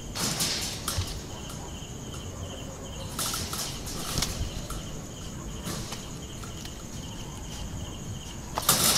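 Crickets chirping steadily, with bursts of rustling and scrabbling as a young monkey scrambles through a leafy bush and climbs the wire mesh; the loudest burst comes near the end.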